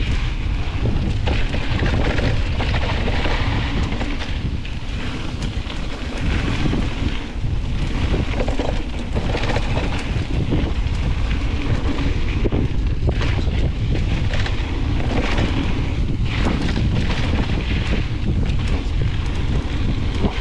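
Wind buffeting the microphone of a mountain bike on a fast descent, over the hiss of tyres on a dirt trail and frequent rattles and knocks from the bike going over bumps.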